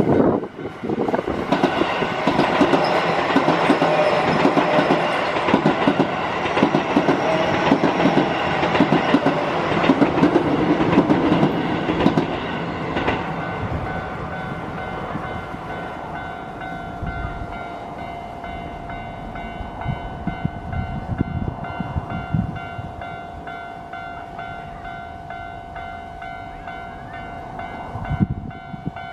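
Keio Line electric train passing over a level crossing, wheels clacking over the rail joints and the crossing. The train fades out about halfway through, leaving the crossing's warning bell ringing steadily.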